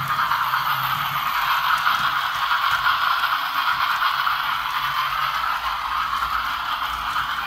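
Battery-powered Tomy Plarail EF63 toy locomotives running on plastic track: a steady, even whirring rattle from the motor gears and wheels.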